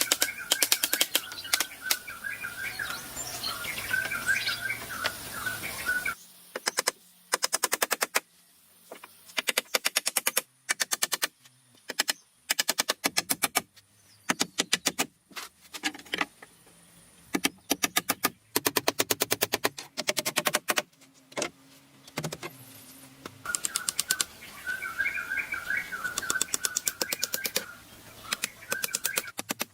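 Rapid trains of sharp knocks or clicks, many a second, coming in bursts with short gaps between them. Birds chirp during the first few seconds and again near the end.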